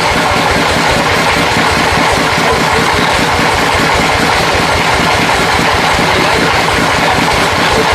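An engine running steadily at constant speed, with a fast, even low throb under a dense mechanical rush.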